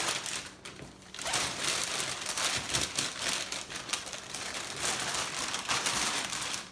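Folded inflatable kayak and its gear being stuffed into a carry bag: a dense run of crinkling and rustling with many small clicks, easing off briefly about a second in.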